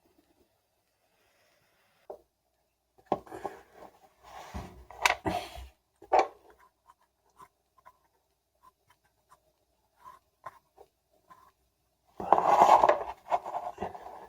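Hands handling a washing-machine damper and its cut pads: scattered rustling and scraping with a few knocks, then a louder rubbing scrape near the end.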